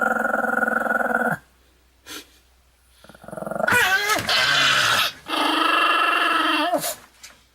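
A Wanwan and Uutan toy chime playing a recorded gruff, growly character voice through its small speaker, in three long drawn-out phrases with a short blip between the first two.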